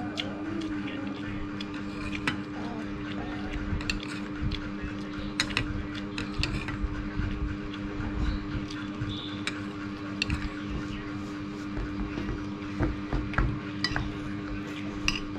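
Metal spoon and fork clinking and scraping against a plate and bowls during eating, in irregular sharp clicks scattered throughout, over a steady low hum.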